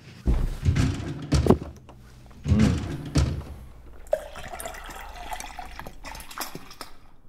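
Coffee liqueur and then milk poured into a glass mug, with a pouring tone about four seconds in that rises slightly in pitch as it goes. Before that, a few louder knocks and rumbles of handling.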